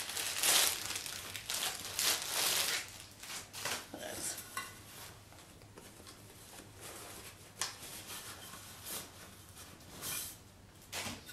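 Cardboard box and paper packaging rustling as a new Hydro Flask bottle is unpacked by hand, loudest over the first few seconds, followed by quieter scattered taps and light clinks.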